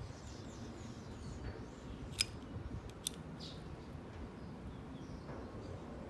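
Small metallic clicks of a vernier caliper being handled and its sliding jaw set against a metal height-of-cut bar, two sharp ones a little under a second apart near the middle, over a faint steady background.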